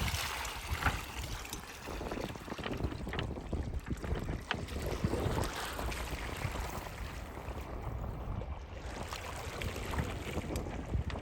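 Wind buffeting the microphone over a steady wash of sea waves, with a few faint clicks.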